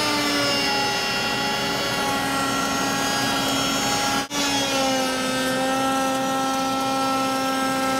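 Table-mounted router running at full speed with a stick (stile) bit, cutting the stick profile along a wooden stile as it is pushed through with a push block. A steady whine with a brief break just after four seconds in.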